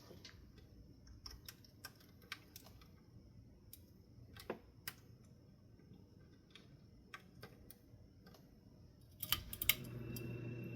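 Scattered light clicks and taps, then a quick cluster of louder clicks near the end as the Litex New Orleans ceiling fan is switched on. Its motor starts up with a steady hum, running on newly fitted bearings that are not yet broken in and don't sound perfect.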